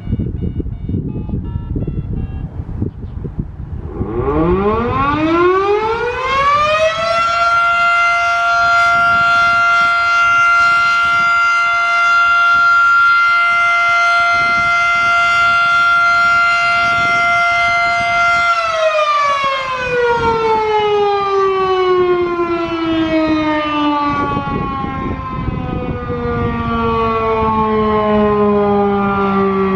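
Federal Sign & Signal Model 7 fire siren, a three-phase electric siren with a 12-port rotor, sounding its daily noon test. It winds up steeply about four seconds in and holds one steady tone for about eleven seconds. It then winds down in a long falling glide that is still sounding at the end.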